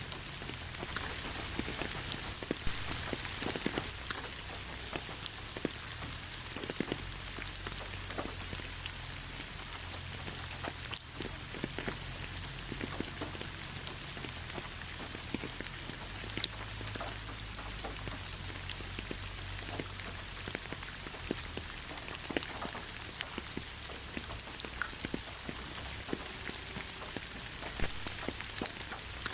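Steady rain falling, with many separate drops pattering and tapping on surfaces.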